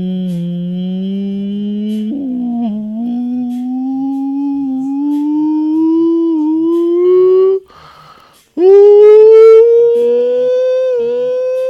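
A man's voice holding long, wordless hummed tones that glide slowly upward in pitch. About 8 seconds in there is a short breath, then a louder, higher tone that keeps rising.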